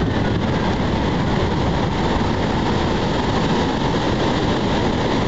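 Wind buffeting the microphone, a steady low rumble, over the even hiss of surf breaking on the beach.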